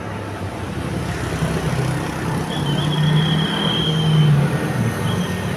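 A road vehicle's engine running and growing steadily louder, with a faint high thin tone for about a second in the middle.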